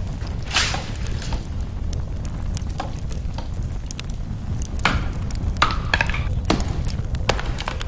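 Estwing axe chopping into a tree branch: a series of sharp chops, about one a second, coming closer together near the end.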